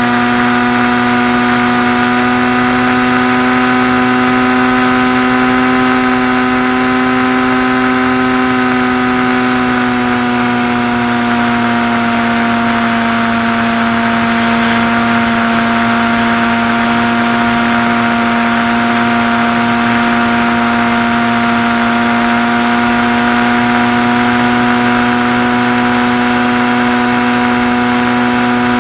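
Skywalker RC model plane's motor and propeller running steadily, a constant drone over a steady hiss. The pitch eases down slightly around ten seconds in and then holds.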